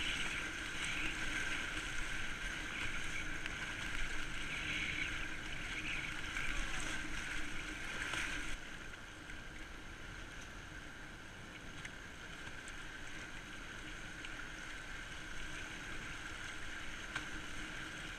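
Fast river water rushing around a kayak running a high-water river, with splashes from the waves and paddle strokes. The rush is louder and surging for the first eight seconds or so, then drops to a quieter steady wash.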